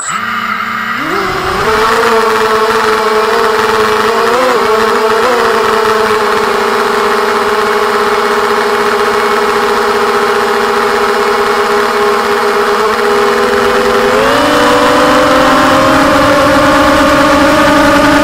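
Brushless motors of a 250-size FPV racing quadcopter, picked up by its onboard camera. They spin up about a second in to a steady pitched whine, then step up in pitch about 14 seconds in.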